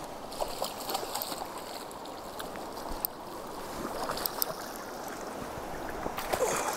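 Shallow river water running and sloshing around hands and a landing net, with scattered small splashes and knocks, one from a coho salmon splashing at the surface beside the net about four seconds in.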